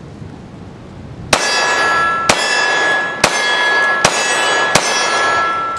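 Five shots from a Glock 30S compact .45 ACP pistol loaded with standard-pressure 230-grain full-metal-jacket ball, fired about a second apart starting about a second in. Each shot is followed by a metallic clanging ring that keeps sounding after the last shot.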